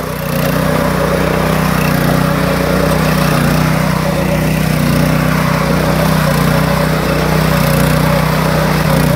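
Small engine of a mini power tiller running steadily at an even pitch while ploughing a wet paddy field.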